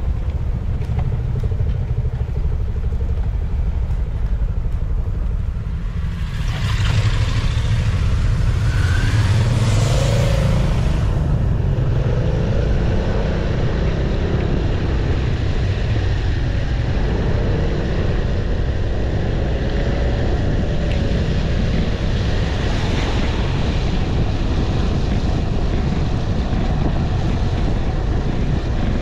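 Riding noise from a BMW C 400 X scooter heard through a windscreen-mounted camera: steady low wind buffeting on the microphone over the scooter's engine and tyre noise. The noise swells and fills out from about seven to eleven seconds in, then settles again.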